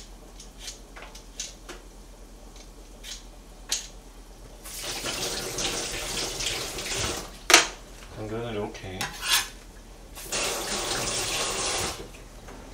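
Kitchen tap running in two spells, about three seconds and then about two, as the carrot is rinsed under it to wash off dirt still left on its skin. A sharp knock comes between the two spells, and light clicks of kitchen things come before the first.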